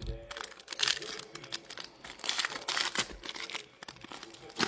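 Plastic wrapping on trading-card packs crinkling and tearing as it is pulled open, a run of sharp crackles and rustles, loudest a couple of seconds in, with a short sharp snap near the end.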